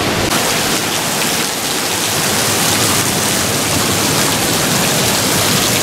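Thin waterfall splashing down a rock cliff in narrow streams onto the sand: a steady hiss of falling water.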